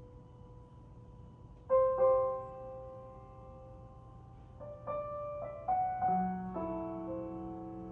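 Piano intro of a recorded ballad played back through home-built four-way speakers. Sparse struck notes and chords ring out and decay, with a low bass note joining near the end.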